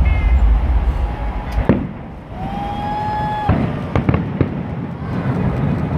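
Aerial fireworks shells bursting overhead: a heavy low rumble of booms for the first second and a half, then several sharp bangs. A steady high tone is held for about a second near the middle.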